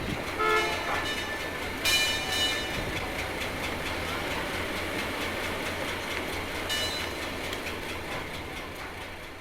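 Train running with a steady rumble. Short pitched tones sound about half a second in, then higher ones about two seconds in and again near seven seconds, and the sound fades near the end.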